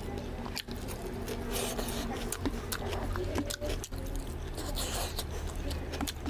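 Eating by hand: wet clicking mouth sounds of chewing, and fingers squishing and scraping rice mixed with oily mutton fat curry on a plate.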